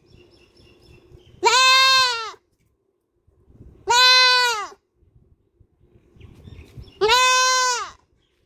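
Goat bleating loudly three times, each call a high, wavering scream of under a second that rises and then falls in pitch, about two and a half seconds apart.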